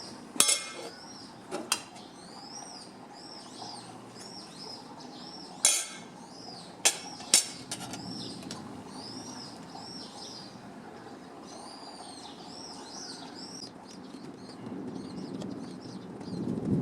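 Small bird chirping steadily in short, arched, repeated notes. Several sharp knocks cut in over it: two in the first two seconds and three more between about six and seven and a half seconds, and these are the loudest sounds. A low rumble swells near the end.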